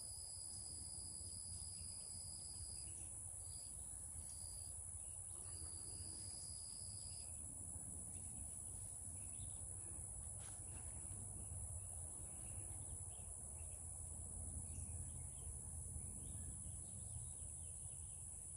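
Faint outdoor ambience of insects: a steady high-pitched drone throughout, with a second, lower trill that stutters and stops about seven seconds in, over a faint low rumble.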